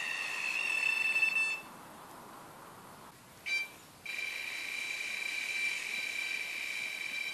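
Electronic carp bite alarm sounding a continuous high tone, the sign of a fish running and taking line. The tone stops about one and a half seconds in; after a short beep, another continuous alarm tone, slightly lower in pitch, starts about four seconds in.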